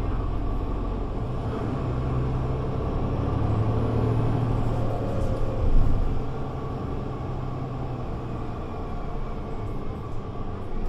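Diesel engine of a Mercedes-Benz Citaro C2 G articulated bus running under load, a steady low drone that swells and then drops back a little over halfway through.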